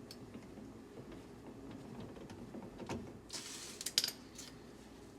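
Light clicks and a short scraping rustle from the window regulator cable and door parts being handled and fitted into a car door, with a sharp click about four seconds in as the loudest sound.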